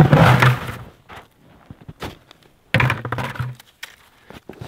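Snow crunching and a plastic bucket thunking as a man shifts on an upturned bucket seat and tips backward off it into the snow. There are two rough bursts, one at the start and one about three seconds in, with quiet between them.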